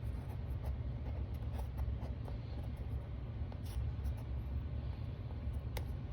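Cardboard and plastic packaging being handled, rustling and scraping with scattered light clicks and one sharper click near the end, over a steady low hum.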